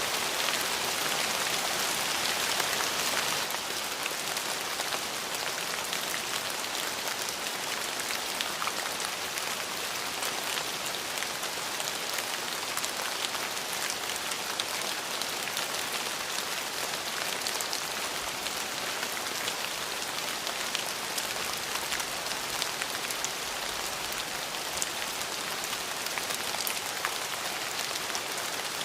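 Steady rain falling, a dense patter of drops on a surface, easing slightly about three seconds in.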